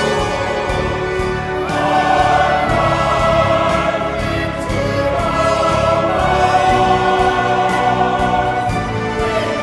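Background music: a choir singing long held notes over an orchestral accompaniment.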